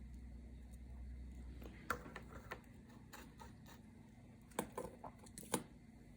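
Scattered light clicks and taps of small parts being handled, jumper leads and a small circuit board being positioned for soldering, with the sharpest few clustered near the end, over a faint low hum that drops away about two seconds in.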